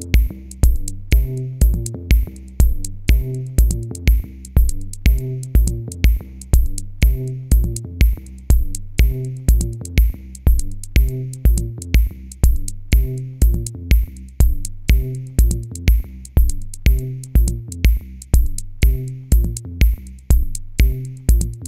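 Electronic music with a steady beat, about two beats a second, over a repeating bass line.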